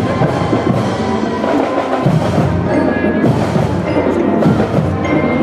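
Marching band playing, with drums and brass including sousaphones, loud and continuous.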